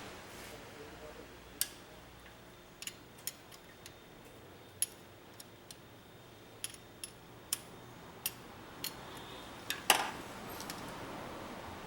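Scattered sharp metallic clicks and taps of hand tools being worked on an engine, at irregular spacing, with a louder clatter about ten seconds in.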